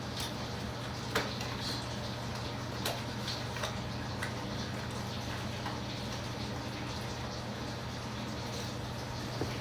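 Steady low hum with a few faint clicks scattered through it; no speech.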